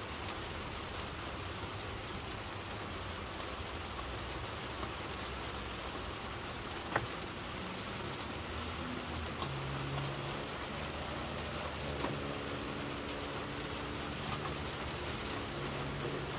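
Steady rain falling, an even hiss of drops. A single sharp tap sounds about seven seconds in, and a faint low hum joins from about halfway.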